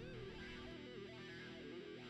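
Faint background music led by guitar.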